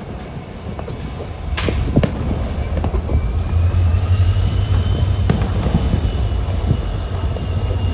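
Express train running, heard from on board behind its EMD WDP4 diesel locomotive. The low hum and rumble grow louder about a second and a half in, a thin high whine rises in pitch and then holds, and a couple of sharp knocks come from the track.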